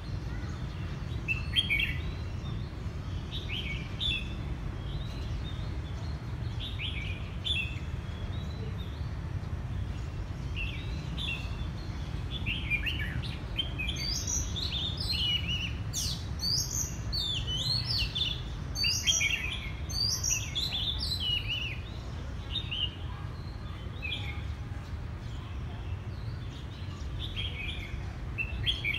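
Oriental magpie-robin singing: short, varied whistled phrases and chirps, sparse at first, growing into a busy run of song about halfway through, then thinning out again, over a low steady rumble.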